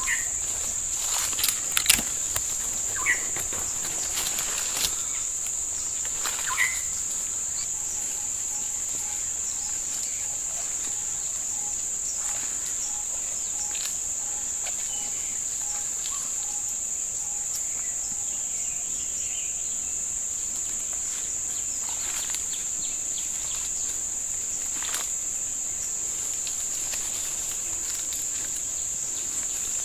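Steady, high-pitched drone of insects in forest. In the first few seconds, footsteps and brush crackle as people push through undergrowth.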